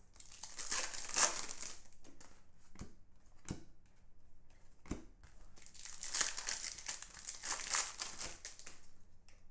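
Foil wrapper of a Bowman Chrome trading-card pack crinkling as it is torn open and handled, in two stretches: one in the first couple of seconds and one in the second half. A few soft clicks fall in between.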